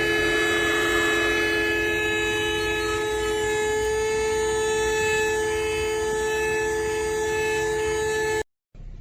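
Mini cordless handheld vacuum cleaner running at full power: a steady motor-and-fan whine with two strong low tones over a rushing hiss, ending abruptly near the end.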